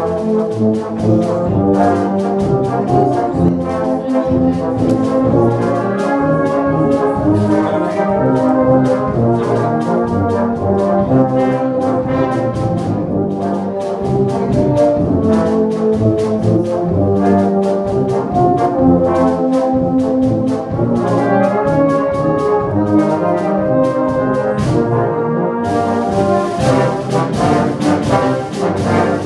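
A brass band of cornets, euphoniums and tubas playing a piece together, with held chords that move from note to note.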